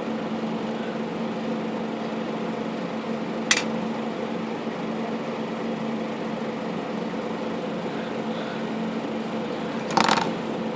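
A steady low hum with a sharp click about three and a half seconds in and a louder short clatter near the end: a hand tool handling a typewriter's thin sheet-metal panel piece while it is bent straight.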